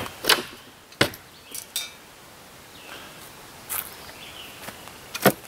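About six short, sharp knocks and clinks at uneven intervals, the loudest about five seconds in.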